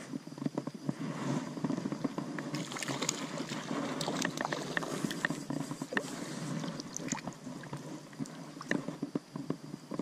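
Shallow stream water splashing and sloshing, with many scattered small knocks and rustles from wading and gear handling, as a small hooked fish is brought in to a landing net. The splashing and clicking are busiest in the middle stretch.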